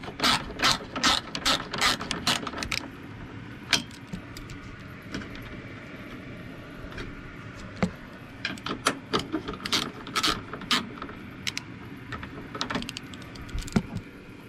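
A socket ratchet clicking as it backs out a 10 mm bolt: a fast run of clicks in the first three seconds, then scattered clicks and another run about halfway through.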